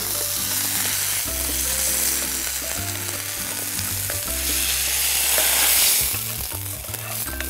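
Chicken and vegetable filling with tomato paste sizzling in a frying pan as it is stirred with a spatula; the sizzle swells about five seconds in. Soft background music with a repeating bass line runs underneath.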